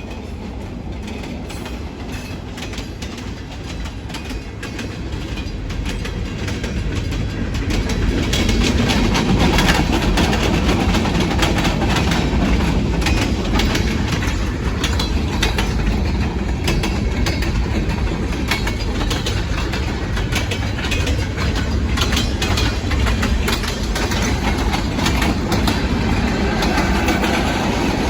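California Northern Railroad train passing close by: its rumble builds over the first eight seconds or so, then stays loud as the wheels clack over the rail joints in a steady run of clicks while the cars roll past.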